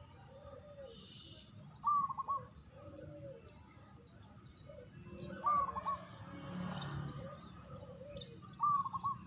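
Perkutut (zebra dove) cooing: the same short, trilled phrase repeated about every three seconds, with softer, lower coos between the phrases.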